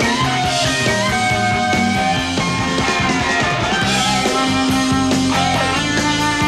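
Live rock band playing an instrumental passage: electric guitars with sliding, bending lead lines over steady drums and bass.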